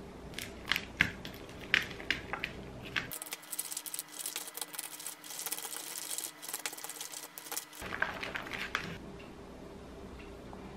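Chopsticks stirring black-bean natto in its plastic tray: a few sharp clicks against the tray, then a fast, dense run of sticky clicking and squishing as the beans are whipped until stringy.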